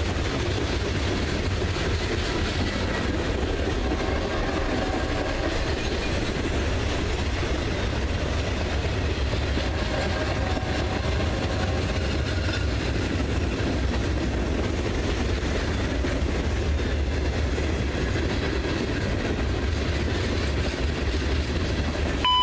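Mixed freight train of tank cars and open gondolas rolling past: a steady rumble of steel wheels on the rails that holds even throughout.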